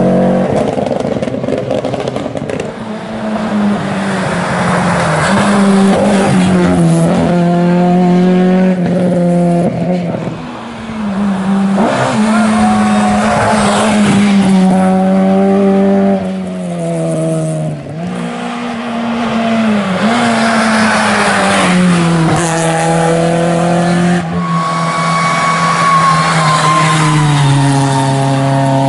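Historic rally cars, among them a Ford Escort Mk2, driving hard one after another through bends on a tarmac stage: engines revving high, pitch climbing and dropping again and again with gear changes and lifts off the throttle.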